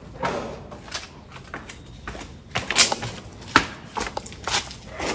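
A series of irregular knocks and thuds, about a dozen in a few seconds, the loudest about three seconds in.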